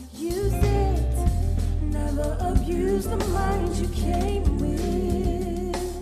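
Live band music with a woman singing into a microphone; a heavy bass comes in just after the start and carries under the voice.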